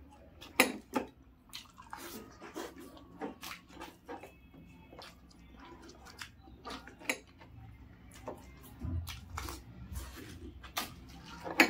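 Crisp hollow puris being cracked open with the fingers and stuffed with a wet chickpea filling: an irregular run of sharp crackles and small wet squishes. The loudest crack comes about half a second in and another near the end.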